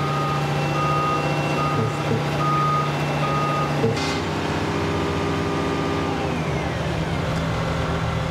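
Heavy construction machinery running steadily with a reversing alarm beeping a little more than once a second. The beeping stops about four seconds in, after a short knock, and the engine keeps running.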